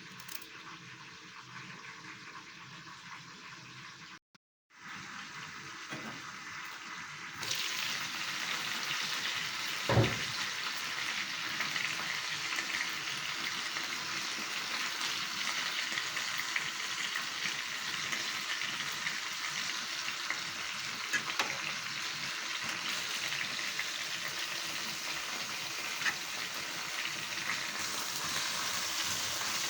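Food frying in hot oil in a pan, a steady sizzle that starts about seven seconds in and runs on, with a single knock of a utensil against the pan about ten seconds in.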